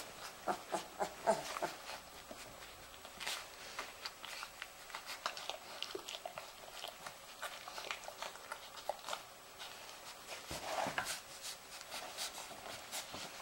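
Newborn Weimaraner puppies suckling from their mother: a run of quick wet smacking and clicking sounds with a few short squeaks and grunts, busiest near the start and again about eleven seconds in.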